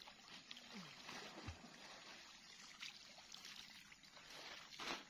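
Faint sloshing and splashing of pond water as a man wades and moves plastic bags of fish through it, with one louder splash near the end.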